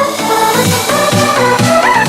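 Electronic dance music with a steady beat and a synth melody.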